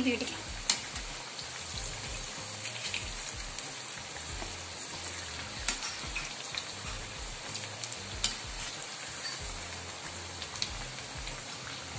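Keerai vadai (urad and chana dal fritters with drumstick leaves) deep-frying in hot peanut oil in a steel kadai: a steady crackling sizzle, broken by a few sharp clicks.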